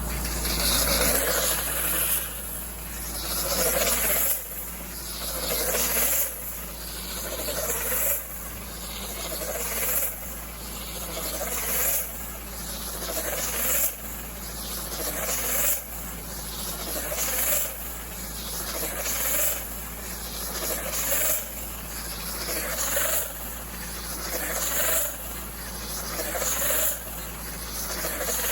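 Hay bale wrapper turning a round bale and winding plastic wrap around it. It runs in an even cycle, building and then dropping off sharply about every two seconds.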